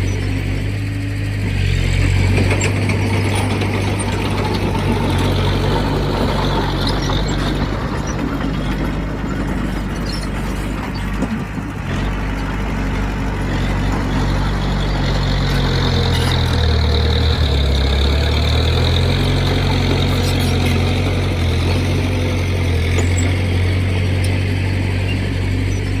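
Heavy earthmoving machine's diesel engine running at work, its low hum shifting in pitch a couple of times, with steady mechanical noise over it.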